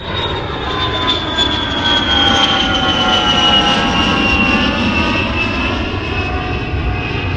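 Airliner jet engines: a loud, steady rush with a high whine that slowly falls in pitch.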